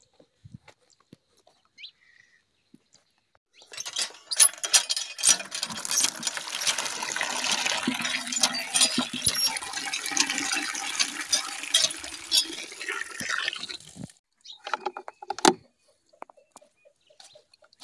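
Water from a hand pump gushing into a plastic bucket, starting about four seconds in and stopping about ten seconds later. A few short knocks follow near the end.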